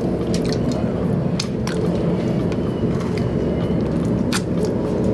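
Fast-food eating sounds: scattered short clicks and crinkles over a steady low rumble.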